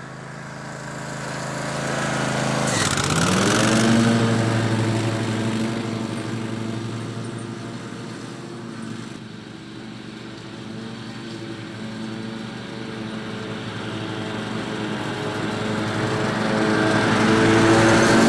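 Zero-turn riding lawn mower engine running while mowing. About three seconds in its pitch drops sharply and climbs back, and the sound swells, fades and swells again as the mower moves.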